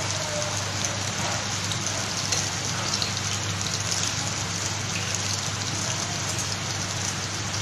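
Marinated chicken skewers deep-frying in hot oil in a frying pan, the oil sizzling steadily.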